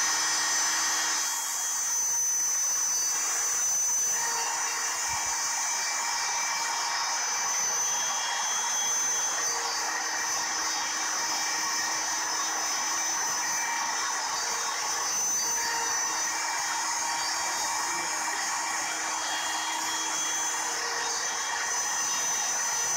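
Compact router mounted as the spindle of a homemade CNC machine, running with a steady whine as it carves a wooden board.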